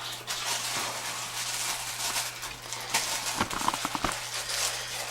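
Dogs moving about and playing, their paws pattering and scuffling on the floor in quick taps, with a few short high-pitched sounds a little past three seconds in.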